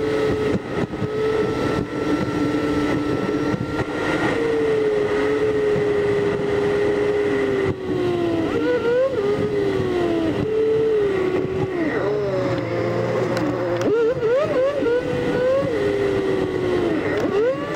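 Smart Roadster Coupé's three-cylinder engine and road noise inside the car, sped up eight times, so the engine note is a high whine that drifts slowly and then swoops quickly up and down with each burst of acceleration and gear change.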